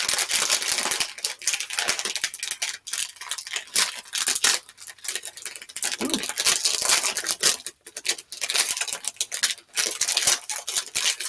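A foil-lined plastic snack bag crinkling and crackling continuously as it is torn open by hand and its contents are pulled out.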